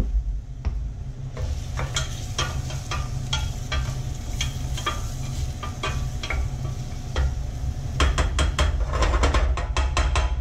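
Wooden spoon stirring chopped shallots and celery sweating in olive oil in a stainless-steel saucepan: a run of quick scraping taps against the pan, coming faster near the end, with a soft sizzle, over a steady low hum.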